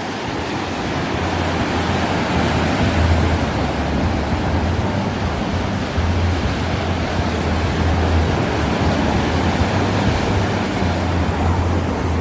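Ocean surf washing onto the beach: a steady, even rush of breaking waves, stepping up slightly in level about halfway through.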